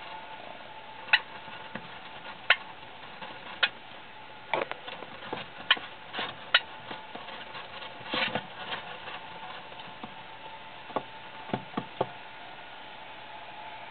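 Golden hamster giving short, sharp squeaks about ten times at irregular intervals, over a faint steady hum.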